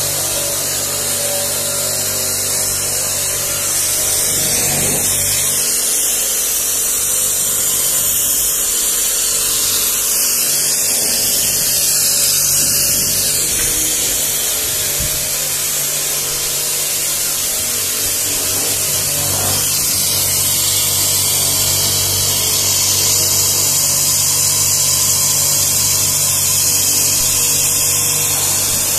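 StarQ W3 electric pressure washer running: a steady motor and pump hum under the continuous hiss of the water jet.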